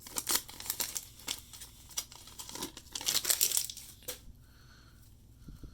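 Foil wrapper of a 1989 Upper Deck baseball card pack being torn open and crinkled by hand, a quick run of crackling rips that is busiest about three seconds in and dies down after about four seconds.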